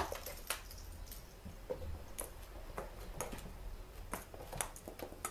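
Kittens playing with cat toys: scattered light taps, clicks and rattles at an uneven pace, with one sharp loud click right at the start.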